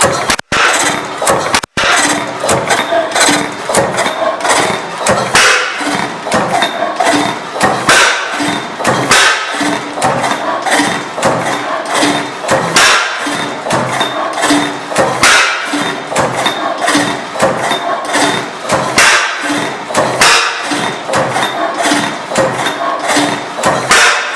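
Early Benz & Co. stationary gas engine running, a string of knocks from its firing strokes and valve gear at an uneven beat, with music over it.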